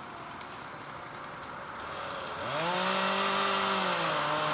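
Chainsaw revving up about two seconds in and running at high speed, easing off slightly near the end.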